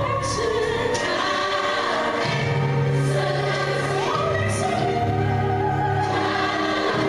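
Music: several voices singing together over instrumental backing, holding long notes, with a deep bass note coming in about two seconds in.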